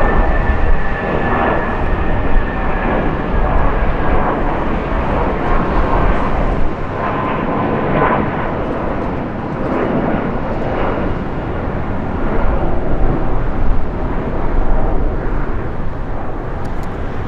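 Airbus A319-132 jet airliner with IAE V2500 engines climbing out after takeoff, its engines running at takeoff thrust: a loud, continuous rushing jet noise with a faint whine near the start that drifts slightly lower.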